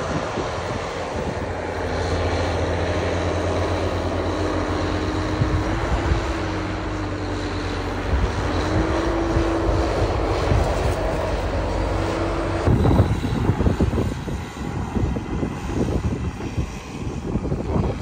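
New Holland tractor's diesel engine working steadily as it drives over a corn silage pile, packing it down; its note rises and dips a little with the load. About two-thirds of the way through, gusts of wind buffet the microphone over the engine.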